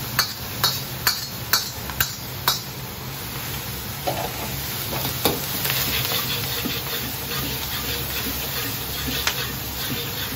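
A metal ladle clacks against a steel wok six times, about twice a second, in the first two and a half seconds. After that comes a steady sizzle as deep-fried chicken and sauce are stir-fried and tossed, over the constant rush of a high-flame gas wok burner.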